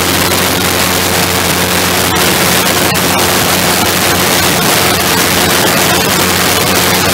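Engine of the MudSkipper, a small wing-in-ground-effect craft, running steadily while it flies low over the water, mixed with loud, even wind rush on the microphone.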